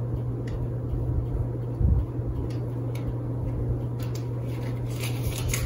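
Steady low hum with a soft low thump about two seconds in and a few faint clicks.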